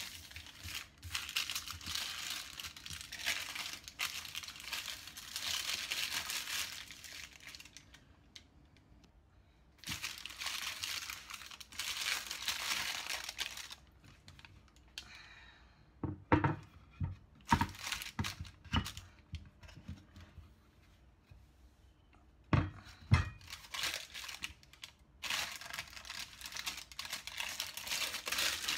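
Baking paper rustling and crinkling as hands fold and smooth it around a slab of dodol, in long stretches with short pauses. Around the middle come several sharp knocks.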